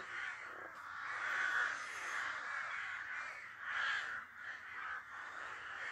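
Crows cawing over one another in a run of harsh, repeated caws, swelling louder about a second and a half in and again about four seconds in.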